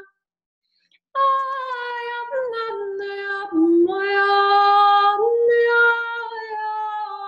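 A woman singing light language: long held, wordless vowel tones that step between a few pitches, starting after about a second of silence. The middle notes are the loudest.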